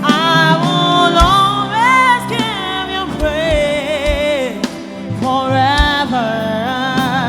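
Live gospel music: a woman singing long held, wavering notes over band accompaniment with a steady kick-drum beat.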